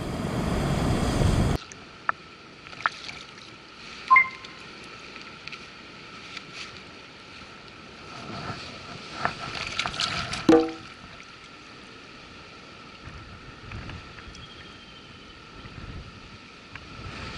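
Wind buffeting the microphone over sea noise, cut off suddenly about a second and a half in. After the cut comes quiet background music of faint held tones with a few soft chime-like notes.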